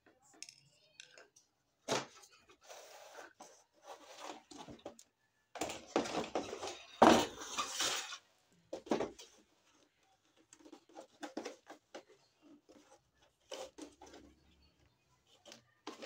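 Objects being handled: irregular knocks and clinks, with longer noisy stretches that are loudest about six to eight seconds in.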